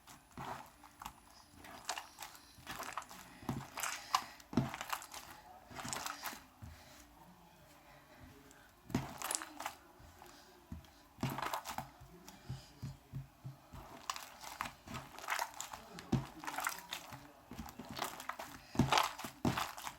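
Hands kneading and stretching a sticky homemade slime, giving irregular crackling and popping in clusters with quieter stretches between.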